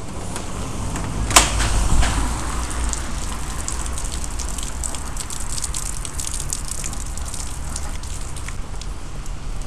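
Steady rain falling on wet pavement, with many small raindrop ticks and one sharp click about a second and a half in.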